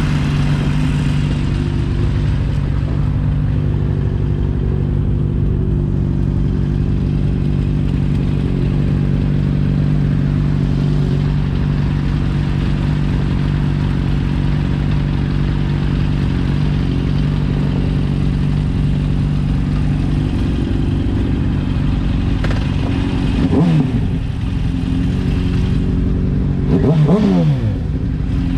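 Motorcycle engine running steadily under way. Twice near the end a tone sweeps sharply down in pitch.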